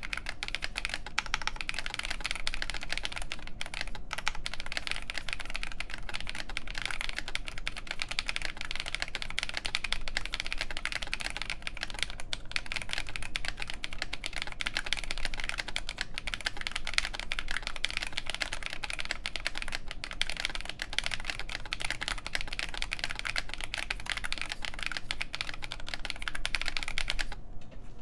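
Steady, fast typing on a Nooir Noland N1 mechanical keyboard with OneKey Momo Oolong linear switches, an FR4 plate and MTNU Graphite keycaps. The keystrokes stop abruptly near the end.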